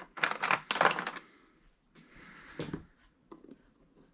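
A rapid run of sharp clattering clicks for about a second, then a few faint knocks and a soft thump.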